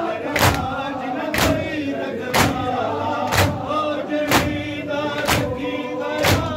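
Shia mourners doing matam: a crowd of men striking their chests in unison about once a second, over a group chanting a noha (lament) to the beat.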